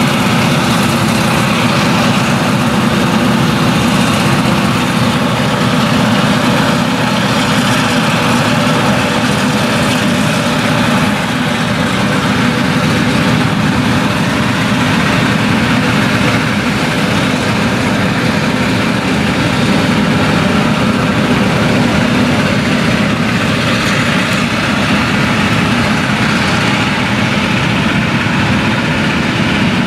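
Claas Jaguar 970 forage harvester with its MAN V8 engine running steadily under load while chopping maize with an Orbis 750 header, mixed with the tractor pulling the trailer alongside.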